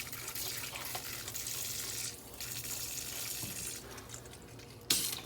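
Water running hard from a faucet with a portable dishwasher's unicoupler clamped on, the coupler holding instead of popping off. The rushing hiss dips briefly about two seconds in and eases off near four seconds, and there is a sharp click near the end.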